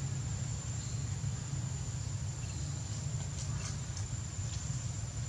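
Steady outdoor background of a low rumble under a thin, steady, high-pitched insect drone, with a few faint short chirps in the second half.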